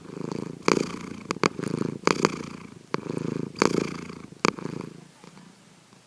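Domestic cat snoring in its sleep: a rattling rasp that swells on each breath, with sharp clicks between breaths. It fades away about five seconds in.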